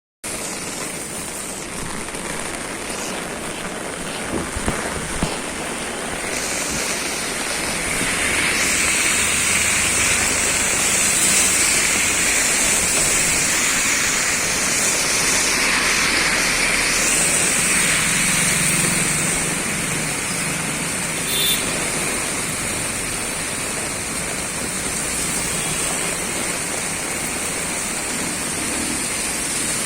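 Steady rainfall: a continuous even hiss. A few brief taps sound about five seconds in, and another a little past the twenty-second mark.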